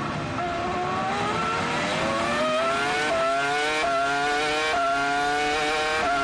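2004 Williams-BMW FW26 Formula 1 car's 3.0-litre BMW V10 engine, heard onboard, pulling hard out of a slow corner. The pitch climbs steadily from low revs, with several quick gear changes, and begins to fall near the end as the car slows.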